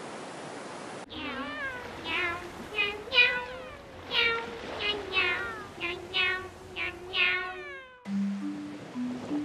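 A jingle of cat meows: about a dozen short meows that fall in pitch, one after another, over a held musical note. It starts about a second in, after a steady hiss, and light background music with stepping notes takes over near the end.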